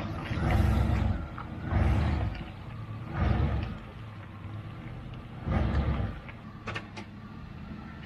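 Chevy G20 camper van's engine running as the van manoeuvres on a gravel road, swelling and easing in four surges over a steady rumble, with a couple of sharp clicks near the end.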